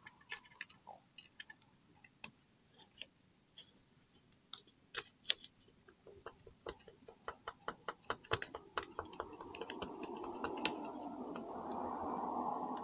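Plastic scraper working old gasket material off the engine case: a run of sharp, irregular clicks and ticks, then a steadier scraping noise that builds from about two-thirds of the way in.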